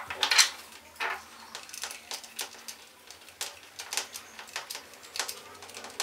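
Small plastic faucet cartridge parts clicking and tapping as they are handled, fitted together and set down on a table. There are a couple of louder knocks near the start and about a second in, then scattered light clicks.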